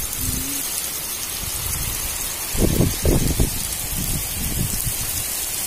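Heavy rain falling steadily onto puddled water and mud. A few low rumbling thumps stand out a little over halfway through.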